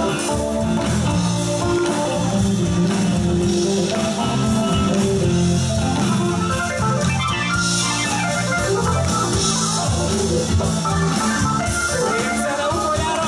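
Live band playing amplified music: electric guitar, bass guitar, drum kit and keyboard.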